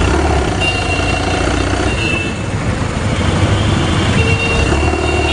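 Busy city street traffic heard from among the vehicles: engines of motorbikes, scooters and cars running steadily, with a few short horn toots.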